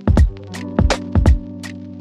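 Background music: an electronic track with a steady beat of kick drum and snare hits over held synth chords.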